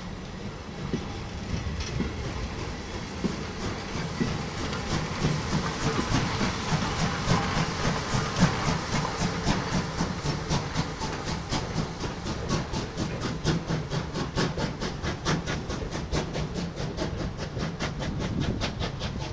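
C11 2-6-4T tank steam locomotive passing with Yo 8000 brake vans, its exhaust beating in a quick, even rhythm over steam hiss and the rumble of wheels on rail. The beat grows louder from about a third of the way in as the engine draws near.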